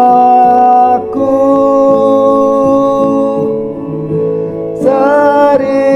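A man singing an Indonesian Catholic hymn in long held notes over an instrumental accompaniment. The voice stops about three and a half seconds in, leaving the accompaniment alone, and comes back near the end.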